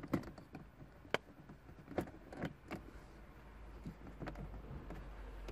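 Scattered faint clicks and scrapes of a 52 mm boost gauge being pushed and twisted into a plastic A-pillar gauge pod, over a low steady hum.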